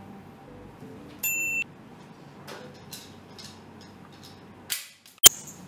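A single sharp gunshot crack a little over five seconds in, from a toy pistol fired into the air, with a short rushing noise just before it. Earlier comes one brief high electronic beep, and faint music plays underneath.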